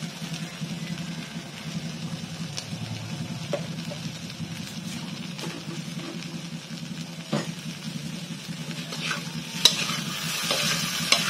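Tokwa sisig (chopped fried tofu) sizzling in a hot pan while it is stirred, with scattered clicks and scrapes of the utensil against the pan over a low steady hum; the sizzle grows louder near the end.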